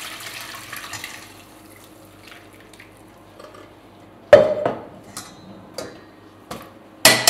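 Fish broth poured from a stainless steel pot through a mesh sieve into a steel bowl, the liquid splashing for about the first second. Then metal cookware clanking: a loud clank about four seconds in, a few light taps, and another loud clatter near the end.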